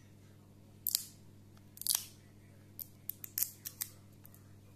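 Fingernails picking at the edge of a plastic protective film on a smartphone screen: short, sharp crackles and clicks, two single ones about a second apart, then a quick cluster of several.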